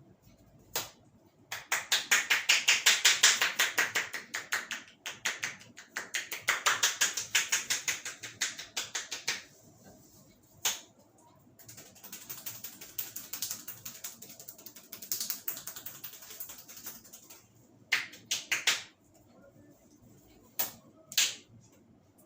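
Barber's hands rapidly tapping and chopping on a head during a head massage: runs of fast, even strokes, many a second, each lasting a few seconds. A few single sharp snaps fall between the runs.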